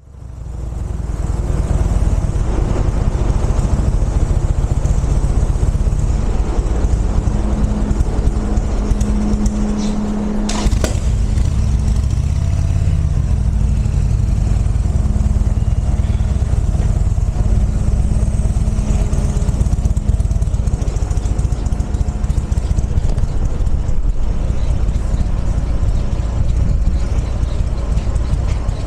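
A motor vehicle's engine running steadily, a loud low rumble with a held hum that fades up at the start, and a single sharp click about ten seconds in.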